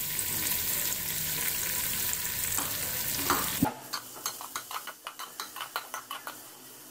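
Sliced onions sizzling steadily in hot oil in a metal pot. About three and a half seconds in, the sizzle cuts off and gives way to quieter, rapid scrapes and taps of a spatula stirring the onions against the pot.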